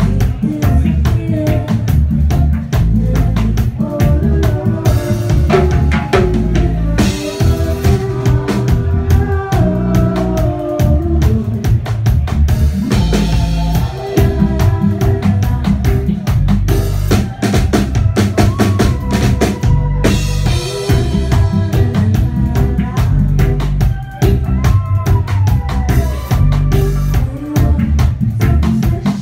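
A live reggae band playing: drum kit with rimshots, snare and bass drum keeping a steady beat over an electric bass guitar line.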